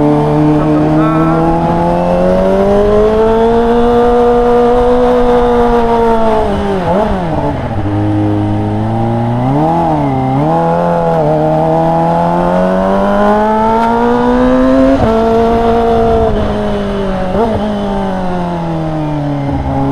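Kawasaki ZX-25R's 250 cc inline-four running through an aftermarket Yakuza R7 exhaust at low road speed, its pitch following the throttle: a slow climb, a sharp drop about seven seconds in, a couple of quick blips around ten seconds, another climb, then easing off toward the end with one more short blip.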